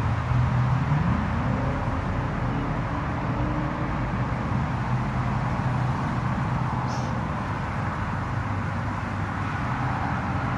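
A motor engine running steadily, its pitch rising briefly about a second in.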